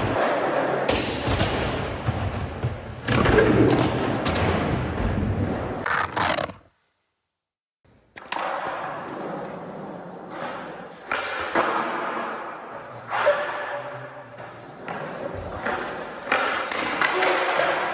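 Skateboard wheels rolling with the board knocking and thudding on ramp and floor, including several sharp impacts. The sound drops out to silence for about a second near the middle, then resumes with more rolling and knocks.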